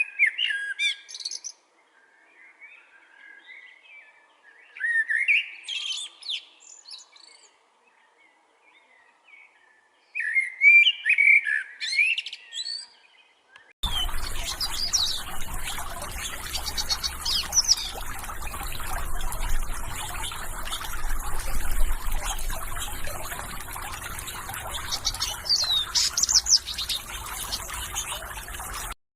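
Small songbirds chirping and singing in three short bursts of rapid, sweeping notes. About halfway through, a steady background hiss and low rumble come in suddenly under further chirps, and the sound cuts off abruptly near the end.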